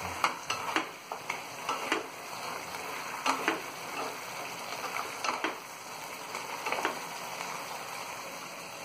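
Chicken lollipops sizzling in sauce in a non-stick frying pan while a wooden spatula stirs and tosses them, with irregular knocks and scrapes of the spatula against the pan, most frequent in the first half.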